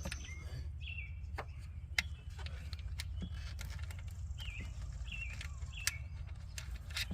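Scattered light clicks and taps of hand-tool work on the alternator, with a few short bird chirps over a steady low rumble.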